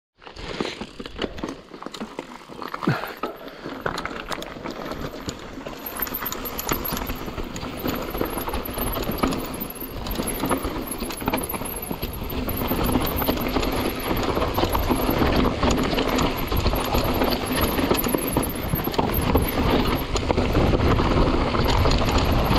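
Mountain bike riding down a dirt singletrack: tyres running over the dirt with a constant rattle and knocking from the bike over bumps, getting louder as the bike picks up speed.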